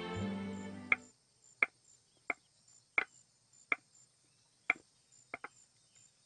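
Soft background music fades out in the first second, followed by light, sharp clicking footsteps at a slow walking pace, about one every two-thirds of a second. The steps stop after about five and a half seconds with two quick final steps.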